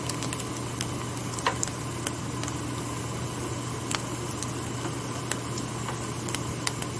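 Scrambled eggs sizzling in a non-stick frying pan: a steady hiss with scattered sharp pops and crackles, over a low steady hum.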